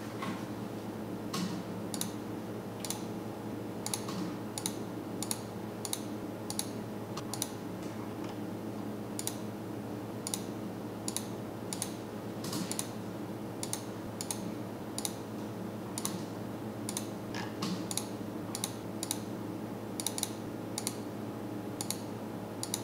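Irregular clicks of a computer mouse and keyboard, one or two a second, over a steady low hum.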